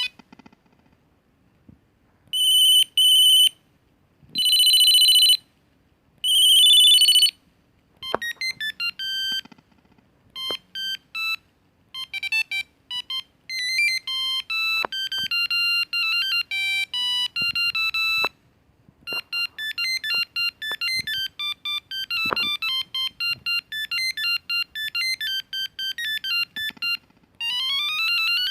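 Ericsson R310s mobile phone playing its built-in ringtones in turn: first three long ringing bursts about a second each, then quick monophonic beeping melodies that hop between pitches, and near the end a tone that sweeps upward over and over.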